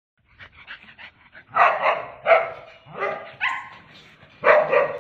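A dog barking in a run of short, loud barks, starting about a second and a half in, with the last pair near the end.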